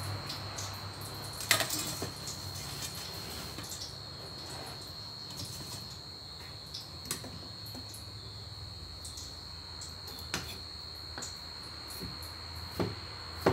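Dishes being handled on a wooden table: scattered clicks and knocks, the loudest about a second and a half in as a steel bowl is set down. Underneath runs a steady high-pitched whine with a low hum.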